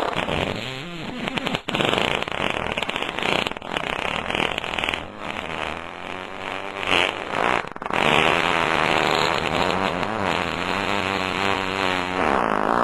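A song playing in a muffled, low-fidelity recording: a melody with wavering, bending pitch over accompaniment, clearest and steadiest from about two-thirds of the way in.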